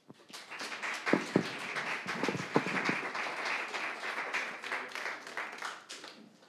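Audience applauding: a small crowd clapping, starting about half a second in and dying away near the end.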